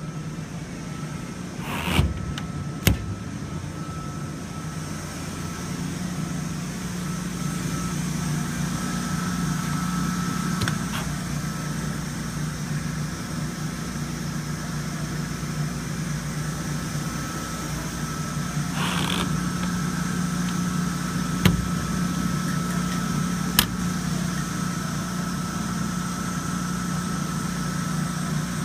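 Perkins diesel engine of a 20 kW standby generator running with a steady hum, with a few sharp clicks near the start and again about three-quarters through.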